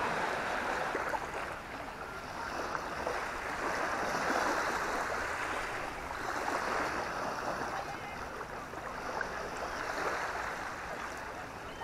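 Small waves washing up on a sandy shore. The sound is a steady hiss of water that swells and eases every few seconds.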